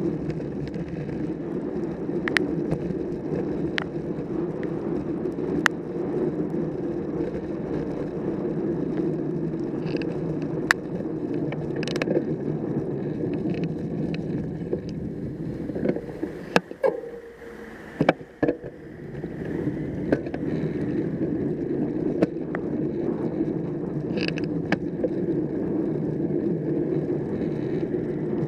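Wind and road noise from a road bike riding on wet tarmac, picked up by a handlebar-mounted camera: a steady rushing with scattered sharp clicks and rattles as the bike goes over the road surface. The rushing dips briefly about two-thirds of the way through, with a few knocks.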